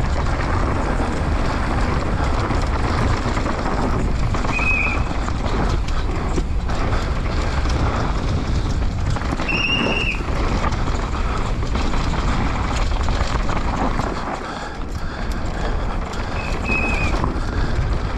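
Commencal Supreme DH 29 downhill mountain bike ridden at race speed down a loose, stony dirt track, heard from a camera on the rider: knobby tyres crunching over gravel, the bike rattling, and wind rushing over the microphone. Three short high whistle notes sound over it, a few seconds apart.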